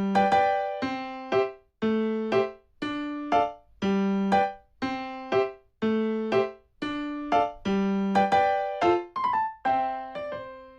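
Background music: a light piano tune with plucked-sounding notes in a steady, bouncy rhythm.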